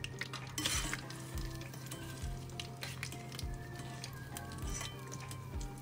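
Hot oil in a deep frying pan crackling and sizzling after shrimp tempura, with a louder hiss a little under a second in. A wire-mesh skimmer stirs through the oil, scooping out loose fried batter crumbs.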